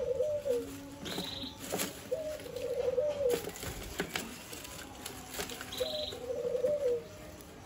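A dove cooing: three pitched, wavering coos of about a second each, roughly three seconds apart. A few light clicks come through between them.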